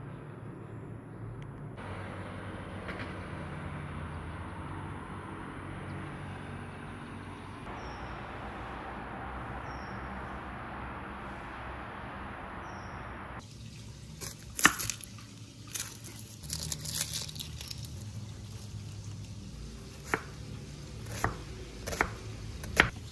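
Santoku knife finely chopping half a red shallot on a wooden cutting board: irregular sharp chops that start a little past halfway. Before that there is only a steady background hiss with a few faint high chirps.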